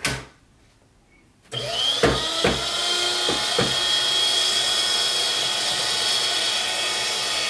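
AmazonBasics 12-sheet cross-cut paper shredder: a click, then about a second and a half in the motor starts with a steady high whine as the cutters chew through a 20-sheet stack, beyond its 12-sheet rating. A few knocks come in the first couple of seconds of cutting as the paper is drawn in.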